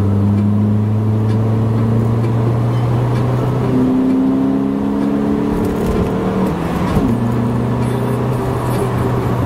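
Honda Civic FA1's 1.8-litre four-cylinder engine and road noise heard from inside the cabin as the car accelerates, the engine note changing pitch about four seconds in and again about seven seconds in.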